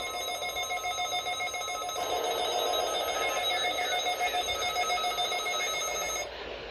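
Several NOAA weather alert radios sounding their alert beeps together as the weekly test activates them: a mix of rapid electronic beeps at several pitches, stopping abruptly about six seconds in.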